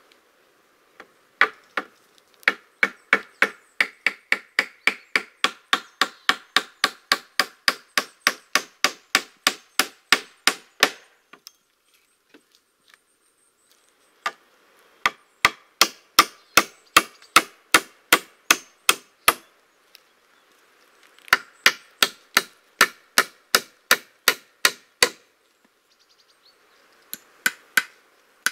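A hand tool striking wood in rapid, even blows, about three a second, in runs of several seconds broken by short pauses while a log cabin is being built.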